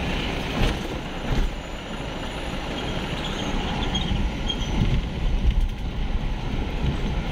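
Motor vehicle moving slowly along a rough lane: steady low engine and road rumble with wind on the microphone, and two brief louder knocks about half a second and a second and a half in.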